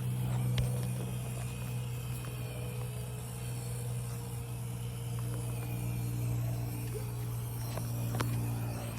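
Small electric motors of 1/24-scale RC crawlers whirring as they drive, with a few sharp clicks as the little plastic cars knock together, over a steady low hum.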